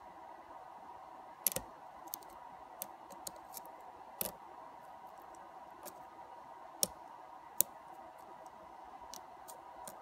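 Lock pick working the pins of a pin-tumbler lock cylinder under a tension wrench: scattered small metallic clicks and ticks, a few louder ones, as pins are lifted and set one at a time during single-pin picking.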